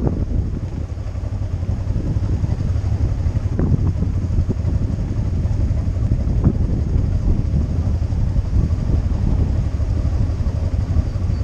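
Wind buffeting the microphone of a camera moving along a sand track: a steady, loud low rumble, with two sharp knocks about a third and about halfway through.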